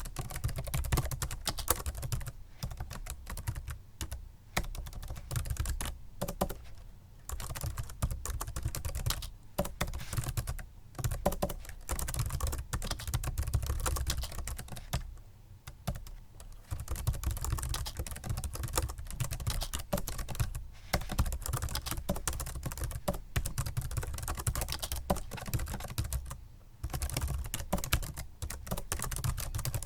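Typing on a Microsoft Sculpt Ergonomic membrane keyboard: fast runs of soft key clicks, pausing briefly a few times.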